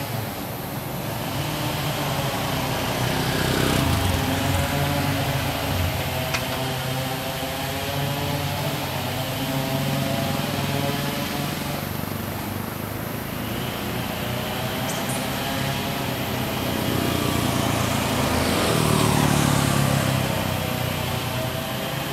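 Road traffic: motorbikes and a van passing on the road, a continuous engine hum that swells as vehicles go by, a few seconds in and again near the end.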